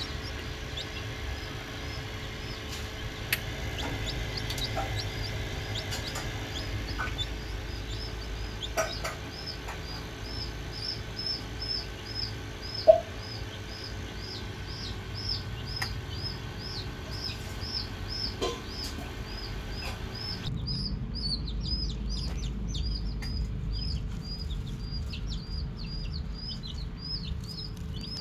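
Poultry peeping in a steady run of short, high chirps, about three a second, over a low hum. One sharp click comes about halfway through.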